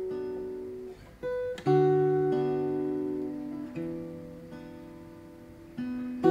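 Slow, sparse guitar music: chords plucked and left to ring out and fade, a new chord every second or two, the loudest struck near the end.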